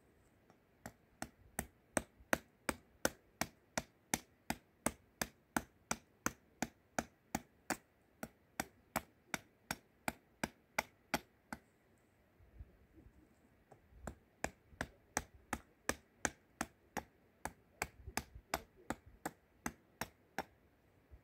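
Hatchet chopping into a wooden spoon blank held on a wooden chopping block: quick, sharp knocks at about three strokes a second, rough-hewing the spoon's shape. The chopping stops for about two seconds midway, then picks up again.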